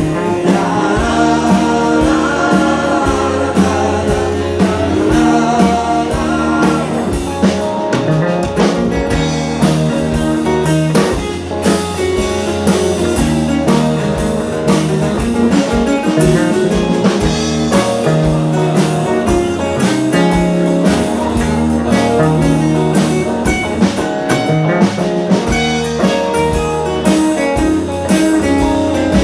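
Live rock band playing loudly through a PA, with guitars and drums.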